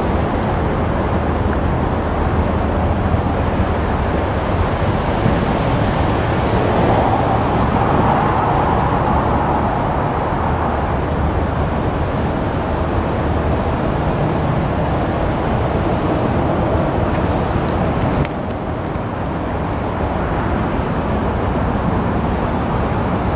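MBTA commuter train running away along the line: a steady rumble of wheels on the rails under the hum of its diesel locomotive. About 18 seconds in it cuts abruptly to a different, slightly quieter steady noise.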